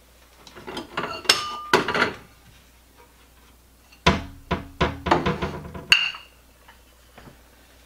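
Ceramic dishes clinking and knocking as a bowl and saucer are taken from a kitchen cupboard and handled, with a cupboard door opened and shut. The clatter comes in two bursts, about a second in and again around four seconds in, a few knocks leaving a short ring.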